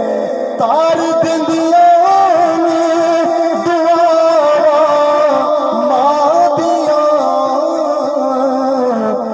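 A man singing a Punjabi-Urdu naat (devotional song in praise of the Prophet) solo into a microphone, amplified through a PA system, in long held and ornamented notes.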